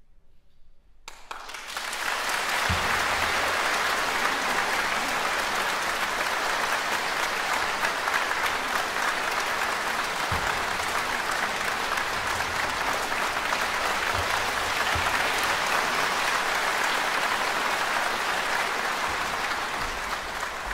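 Concert-hall audience applauding: the clapping breaks out about a second in, swells quickly and then holds steady.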